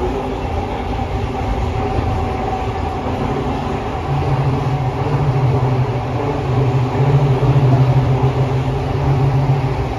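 Toei Oedo Line 12-600 series linear-motor subway car with Hitachi SiC inverter drive, heard from inside the car while running: a steady rumble of the wheels and running gear with a constant motor hum. About four seconds in, a low drone grows louder and holds.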